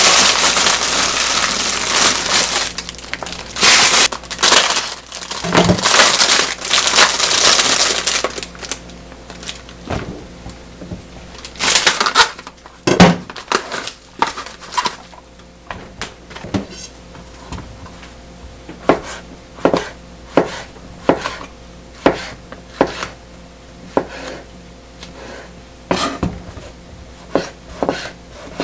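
Kitchen food preparation: a dense crunching, crushing noise for the first several seconds, then a few scattered knocks, then a kitchen knife chopping on a cutting board in regular strokes, a little more than one a second, through the second half.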